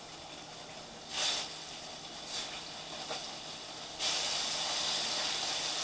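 Hot vegetable oil in a frying pan sizzling as raw zander fish scraps are dropped in: a short sizzle as each of the first few pieces hits the oil, then a louder, steady sizzle from about four seconds in as more pieces fry.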